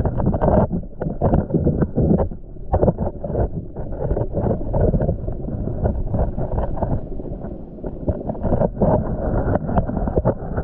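Muffled underwater rumble and sloshing of rock-pool water heard through a submerged microphone, with frequent small knocks and clicks.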